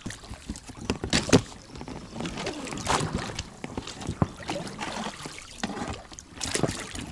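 Small boat being worked along a river under fallen trees, with irregular knocks, scrapes and water splashing.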